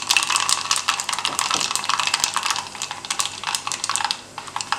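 Mustard seeds popping and crackling in hot coconut oil over a frying sizzle: the spluttering stage of a tempering. The rapid crackle thins out about four seconds in.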